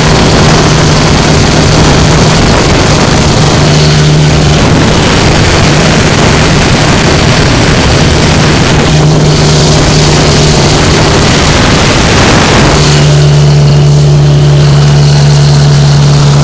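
A vehicle engine running with a loud, harsh rattle over a steady hum. About thirteen seconds in the rattle eases and the steady hum is left.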